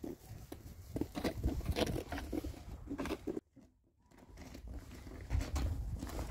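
Footsteps on a paved street, irregular scuffing steps over a low rumble of wind on the microphone. The sound cuts out for about half a second midway, then resumes.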